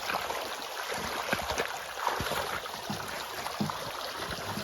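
Rain and snowmelt runoff running steadily along a ditch, with scattered knocks and scrapes as a shovel works ice and mud out of the channel.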